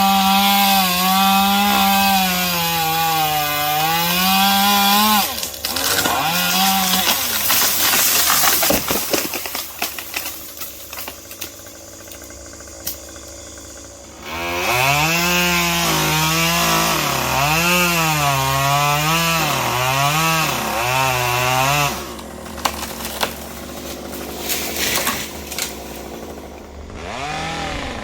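Two-stroke chainsaw cutting wood, its engine pitch bobbing up and down under load. Twice it drops back to a lower idle before revving into the cut again.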